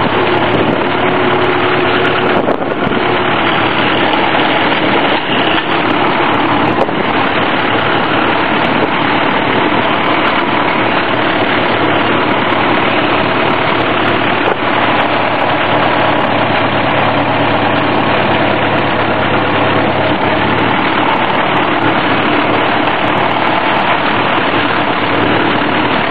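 1951 Farmall M tractor's four-cylinder engine running steadily at idle.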